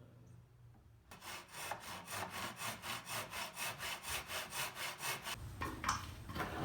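Fine-toothed hand saw cutting a mitre through a thin walnut trim strip, in quick even strokes of about four to five a second for some four seconds, then stopping, followed by a few light knocks.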